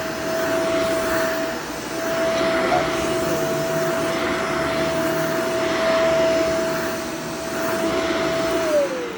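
Shark Vertex upright vacuum cleaner running on a test run, a steady motor whine over airflow noise, rising and easing a little in loudness as it is worked. Near the end it is switched off and the whine falls in pitch as the motor winds down.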